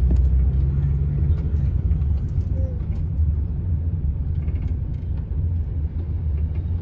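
Steady low rumble of outdoor ambience, with a few faint ticks.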